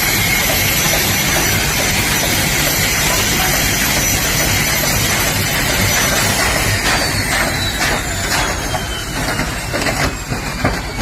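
Helicopter turbine engine and rotor running loudly with a high whine; about halfway through, the whine starts to fall steadily in pitch and the rushing noise eases as the engine winds down.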